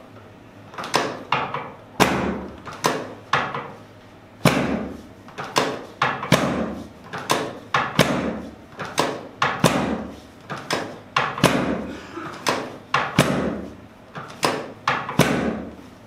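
A long run of sharp thuds, roughly two a second with brief pauses. These are the chiropractor's quick hand thrusts on the lower back and sacrum, each one knocking the patient down against the padded chiropractic table.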